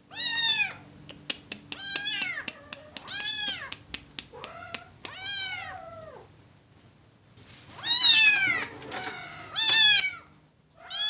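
Blind kitten meowing again and again in high cries, about seven calls, each rising then falling in pitch, the loudest about eight seconds in. A few light clicks sound between the first calls.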